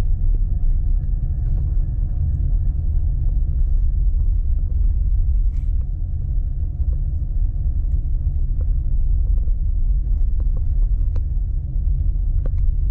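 Steady low rumble of a car driving, heard from inside the cabin: road and engine noise, with a few faint ticks.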